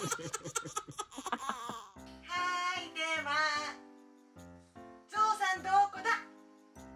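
Background music: a short jingle with quick notes at the start, then two short vocal phrases, about two seconds in and again about five seconds in, over held notes.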